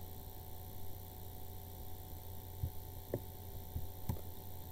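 Steady low electrical mains hum on the microphone line, with a few faint computer mouse clicks in the second half as shapes are copied by dragging.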